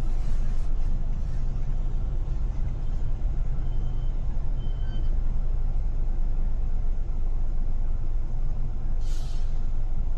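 Steady low rumble of busy city traffic heard from a car driving through it. Two faint short high beeps come midway, and a sharp hiss of about half a second sounds near the end.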